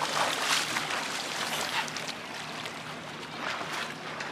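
Lake water splashing as a swimmer strokes through it, loudest in the first couple of seconds and then easing to a softer wash.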